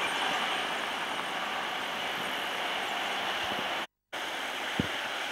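Steady rushing noise of a waterfall, even and unbroken. It drops out for a moment near four seconds in.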